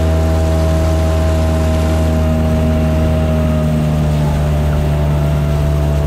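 Motorized fishing kayak underway, its motor running at a steady pitch: a constant drone with a steady higher hum above it.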